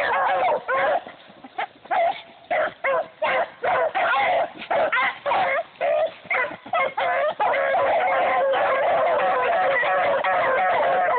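Several dogs barking and yipping, worked up by a rabbit in sight. Short separate barks at first, then from about seven seconds in, many overlapping barks without a break.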